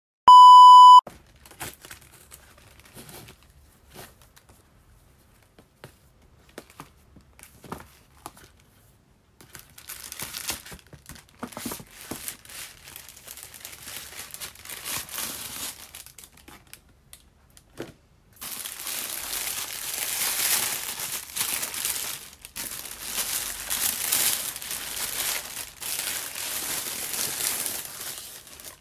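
A loud, steady electronic beep lasting under a second, then scattered light handling clicks. Tissue paper then crinkles and rustles as a gift box is drawn out of a paper shopping bag, getting louder about two-thirds of the way through.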